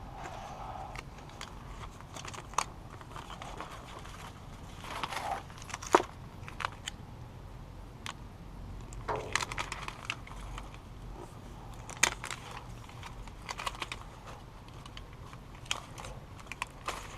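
Hand work on a panel covered in Dynamat and foil tape: crinkling and crumpling with scattered clicks and a few sharp knocks, the loudest about six seconds in and another about twelve seconds in, over a low steady hum.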